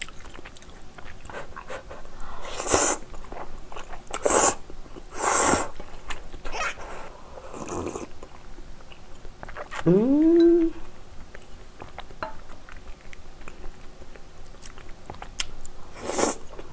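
Close-up eating sounds of spicy instant ramen: noodles slurped in several short, loud bursts, with chewing between them. About ten seconds in comes a single short rising vocal sound.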